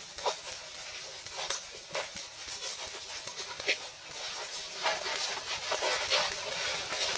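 Kitchen cooking sounds: a steady hiss with scattered light clicks and knocks of utensils.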